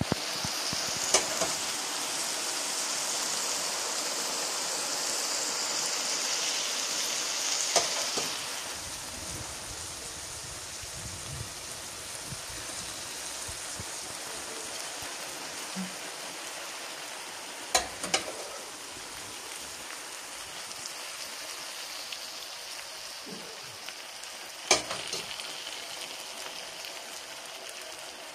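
Sugar syrup ladled over a pan of cut baklava, sizzling as it soaks in; the hiss is loudest for the first eight seconds, then settles to a softer steady hiss. A few sharp clinks of the metal ladle against the pan come in between.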